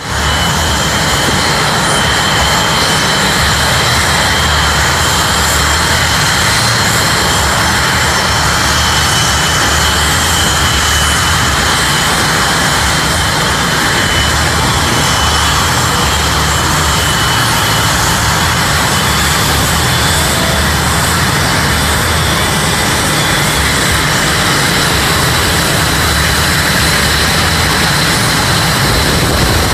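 Blue Angels F/A-18 Hornets' jet engines running as the jets taxi, a loud steady rush with a high-pitched turbine whine over it.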